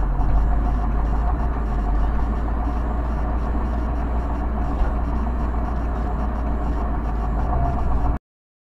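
Steady low rumble of a car's engine and road noise inside the cabin, as picked up by a dashcam. It cuts off abruptly to silence near the end.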